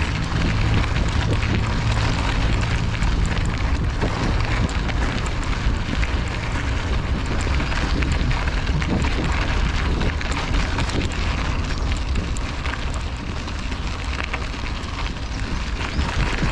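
Mountain bike tyres rolling over a gravel road, a continuous crunching rumble, mixed with wind buffeting the handlebar-mounted microphone.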